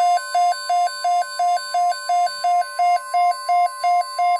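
A weather radio receiver's alert alarm beeping rapidly, about three beeps a second, alternating between two close pitches. Under it runs the steady NOAA Weather Radio warning alarm tone, which signals an incoming emergency broadcast, here a tornado watch.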